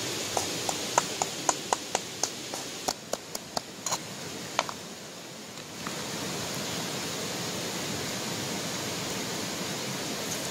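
A quick run of sharp clicks, about four a second, over the first four seconds, over a steady rushing hiss that drops briefly about five seconds in and then carries on evenly.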